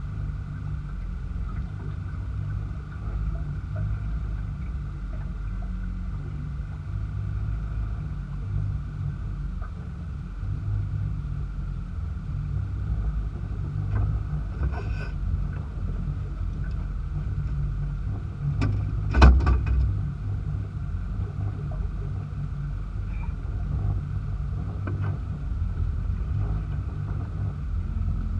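Small kicker outboard motor running steadily at trolling speed, a continuous low rumble. A couple of sharp knocks on the boat, the loudest about two-thirds of the way through.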